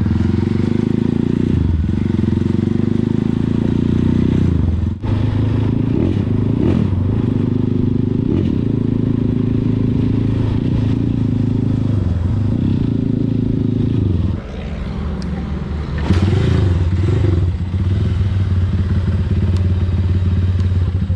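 Motorcycle engine running under way, its note wavering as the throttle is opened and closed. About two-thirds of the way through it drops to a steady idle as the bike comes to a stop.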